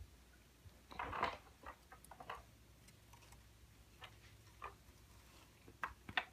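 A hamster's claws clicking and scratching on a hard surface: scattered light taps, with a short busier patch of scrabbling about a second in and a few sharper clicks near the end.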